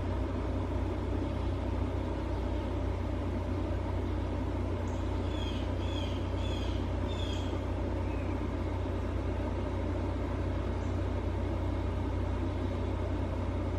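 Steady low outdoor rumble, with a small bird chirping four or five times in quick succession about five to seven seconds in.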